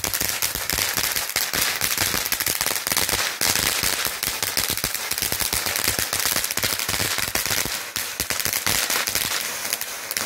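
Multicolour crackling fountain firework burning: a continuous rushing hiss of sparks, thick with rapid crackling pops. It dies down right at the end as the fountain burns out.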